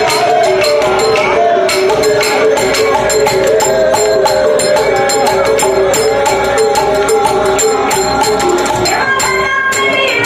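Live folk music: a repeating melody over fast, steady jingling hand percussion.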